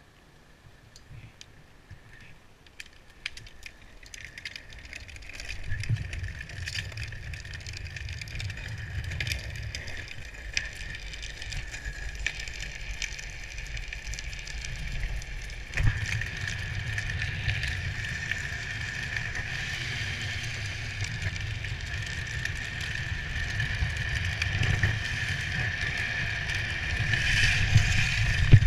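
Drift trike rolling fast down an asphalt road, its hard plastic rear wheels scraping and sliding on the tarmac over a low rumble. Quiet at first, it grows louder from about six seconds in, steps up suddenly about halfway and is loudest near the end as the trike drifts through a bend.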